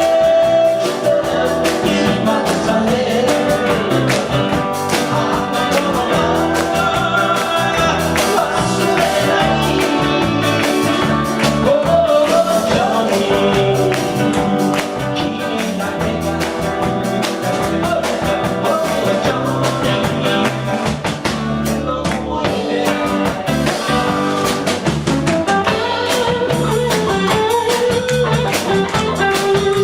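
Live rock band playing a Japanese pop-rock ballad: a singer over electric guitar, bass and drum kit.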